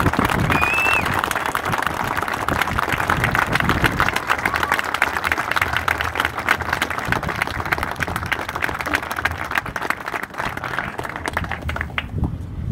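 A crowd of wedding guests applauding, dense clapping with some voices cheering and a whoop about a second in; the applause dies down near the end.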